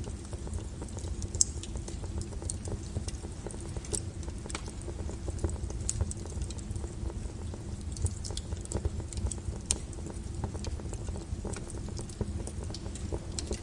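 Wood fire burning, with frequent sharp crackles and pops over a steady low rumble of the flames.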